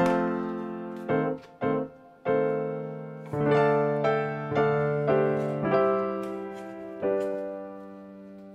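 Background music: a piano playing slow struck notes and chords, each ringing and fading away.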